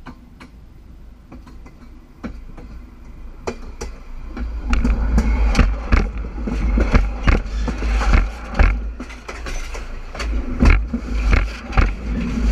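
Steam locomotive approaching along the track toward a camera lying between the rails: sharp clicks and knocks come through the rails more and more often, and a low rumble builds from about four seconds in as the train draws near.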